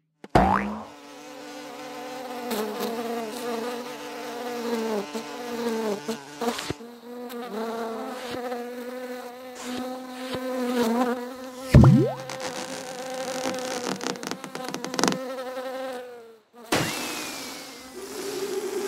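A housefly buzzing around, its drone wavering up and down in pitch as it flies. About twelve seconds in there is a sharp, loud hit, and near the end the buzz stops and a rushing whoosh follows.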